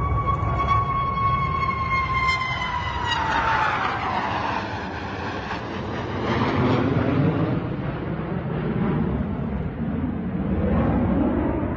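Jet fighters flying low overhead in formation. A high engine whine drops in pitch as they pass, then a broad jet roar swells and fades, swelling again near the end as a second group passes.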